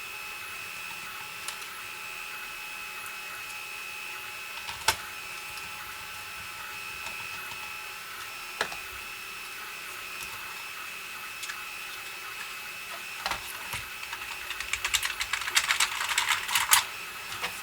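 Plastic clicks and rattles from a ZX Spectrum Plus case and its keys being handled: a few single clicks, then a quick run of small clatters near the end, over a faint steady high whine.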